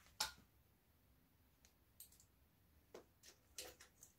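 A handful of sharp metallic clicks of a wrench being fitted and worked on a 10 mm rocker-cover bolt of a Honda CG125 engine, the loudest just after the start and the rest bunched near the end.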